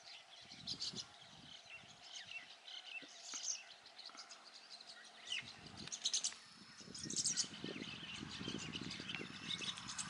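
Rosy starling calling: a scattered run of short, high chirps and squeaky notes, thickest about six to seven seconds in. A low background rumble joins in the second half.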